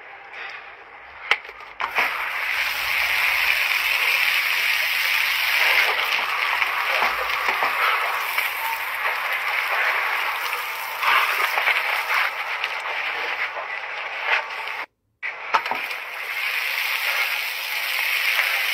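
Outdoor shower running: a steady hiss of water spraying and splashing onto a person and wet concrete, with a few sharp knocks. It starts about two seconds in and cuts out for a moment about three-quarters of the way through.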